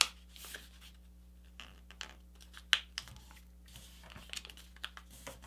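A sheet of paper being folded and creased by hand: scattered rustles and scratches of fingers pressing and sliding along the fold, with a sharp crackle at the start and another nearly three seconds in.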